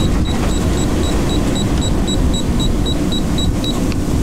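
Sailboat autopilot control keypad beeping in a quick, even string of short high beeps, about four a second, as its course buttons are pressed in wind mode; the beeps stop shortly before the end. Under them runs a steady low rumble of wind and sea noise.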